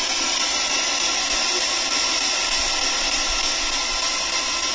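Steady, loud hiss with faint steady tones running through it and no distinct event.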